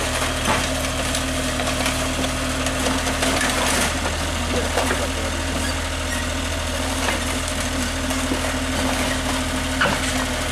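Mini excavator travelling on its crawler tracks, its diesel engine running steadily, with a few sharp clanks from the tracks and undercarriage.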